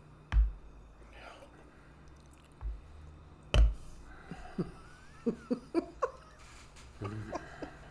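A few dull thumps, then a run of short mouth sounds: sipping and lip-smacking as beer is tasted.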